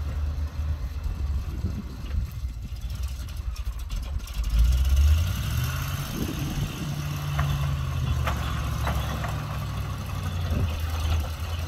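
1977 Chevrolet C65 grain truck's engine running at low speed, a steady low drone that swells louder for a moment about four and a half seconds in, then settles into an even hum.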